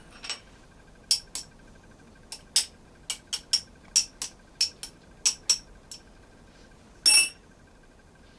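Sharp metal clicks and clinks, about fifteen in irregular succession, then a longer scraping clink about seven seconds in, as a small washer on a bicycle wheel's threaded axle is worked by hand; the washer is stuck and will not move.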